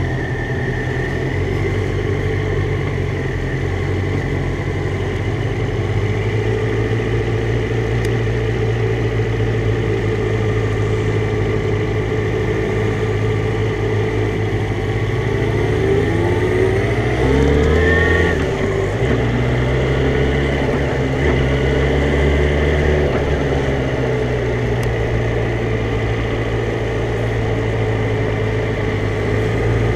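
Motorcycle engine running as the bike is ridden at low speed. A little over halfway through, the engine note rises as it accelerates, then settles into a steady higher note.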